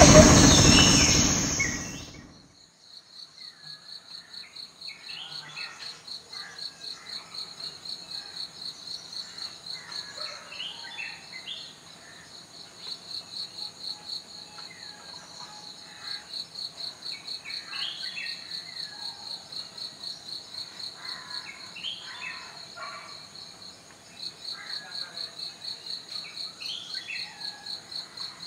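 A loud noise fades out over the first two seconds. Then a cricket chirps in a steady, fast-pulsing high trill, with short bird chirps and calls scattered through it.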